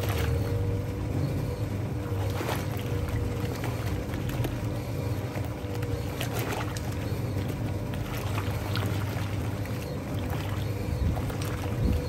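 Hoovermatic twin tub washing machine running its wash action: the pulsator churns towels through sudsy water with continuous sloshing over a steady motor hum.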